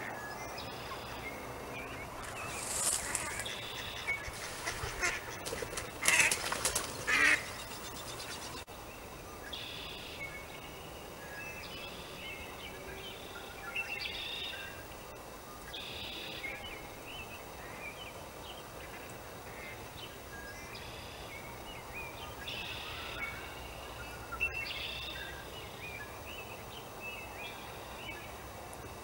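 Waterfowl calling: a cluster of loud calls a few seconds in, the loudest around the middle of that stretch, then shorter, fainter calls scattered through the rest.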